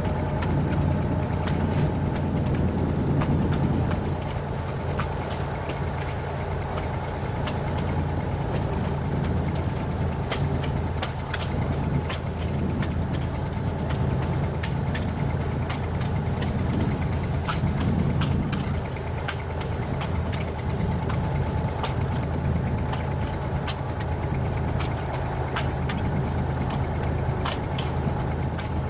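Narrow-gauge diesel train running along the track, heard on board: a steady engine hum with many irregular sharp clicks and knocks from the wheels on the rails, thickest in the middle stretch.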